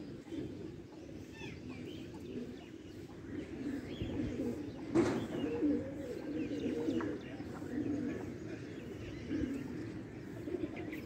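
Domestic pigeons cooing, with a few small-bird chirps over it and a single sharp knock about five seconds in.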